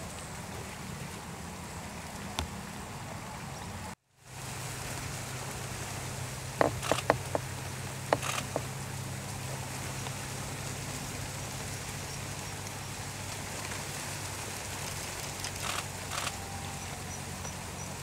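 Outdoor wetland ambience: a steady hiss over a low hum, with a brief dropout about four seconds in and a few sharp clicks around seven and eight seconds in and again near sixteen.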